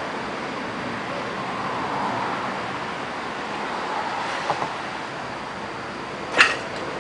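Steady background noise, with two light clicks about four and a half seconds in and a single sharp clunk near the end as the heavy globe-ended Thomas Inch dumbbell is set back down on the floor.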